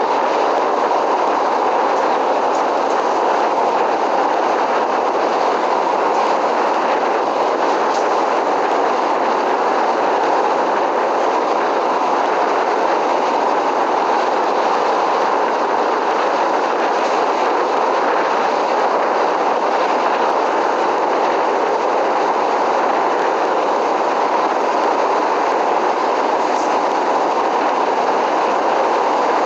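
Train running on rails at a steady pace: a continuous, even running noise that holds the same level throughout.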